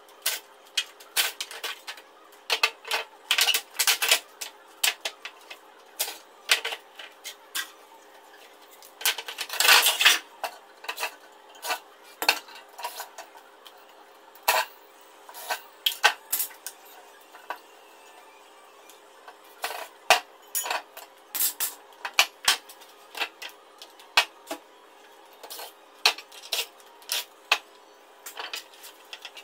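Irregular clinks, knocks and clatter of metal and plastic parts being handled as a wall-mounted air-conditioner indoor unit is taken apart: its finned coil, casing and blower. A dense cluster of knocks comes about ten seconds in.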